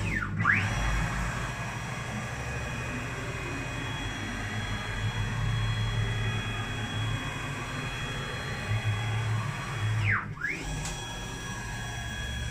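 Stepper motors driving the 1605 ball screws of a home-built CNC router, jogging rapidly at 5000 mm/min with a steady whine. Twice, about half a second in and again about ten seconds in, the whine sweeps down in pitch and straight back up as the axis slows, reverses and speeds up again.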